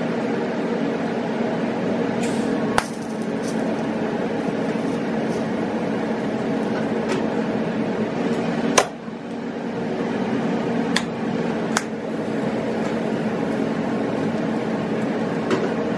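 A steady machine hum, with several sharp clicks or taps over it, the loudest about nine seconds in.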